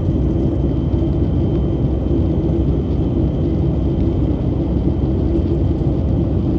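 Jet airliner in flight heard from inside the cabin: the steady noise of engines and rushing air, heaviest in the low range, with a constant hum and a thin high whine over it.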